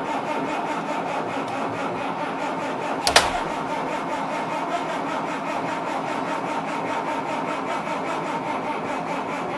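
Caterpillar 3126 turbo-diesel inline-six running at a fast idle of about 1000 rpm just after a cold start at −11 °F, not plugged in, with a steady even clatter heard from the driver's seat. A single sharp click sounds about three seconds in.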